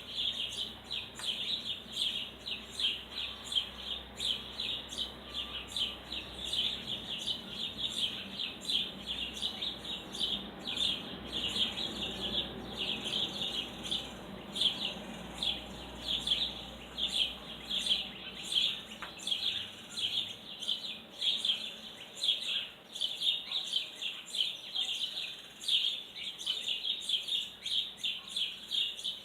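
Small songbird chirping rapidly and without a break, short high chirps repeated several times a second.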